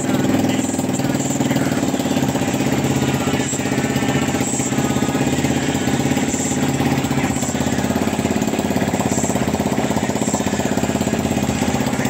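A scooter's 157QMB (GY6-type 150 cc four-stroke single-cylinder) engine idling steadily after being rebuilt with a new crankcase seal and gasket.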